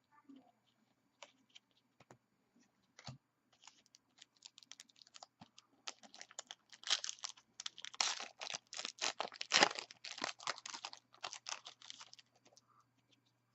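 A trading card pack wrapper being torn open and crinkled, a dense crackling rustle lasting several seconds about halfway in. Before it there are a few light clicks of cards being handled.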